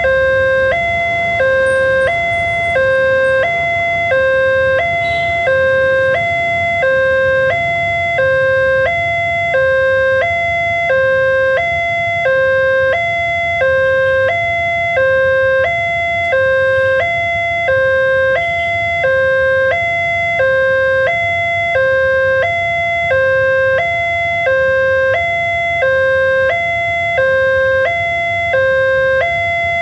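Railway level-crossing warning alarm from the crossing's loudspeaker: an electronic two-tone chime alternating evenly between a lower and a higher tone, about one pair a second. It is the signal that a train is approaching and the crossing is closed.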